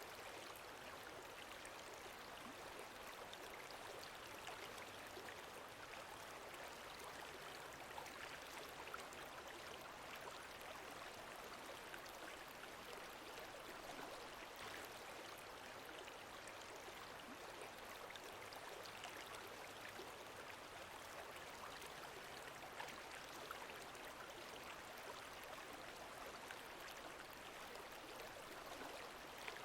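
Faint, steady wash of lake water lapping gently, with small scattered splashes.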